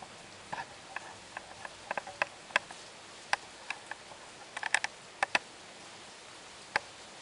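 Storm rain: irregular sharp taps of drops striking a hard surface close to the microphone, over a steady hiss of falling rain.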